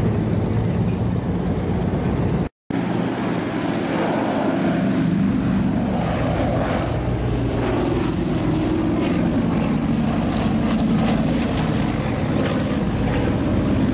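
Lockheed Super Constellation's four Wright R-3350 radial piston engines and propellers droning steadily as the airliner flies past. There is a brief break in the sound about two and a half seconds in.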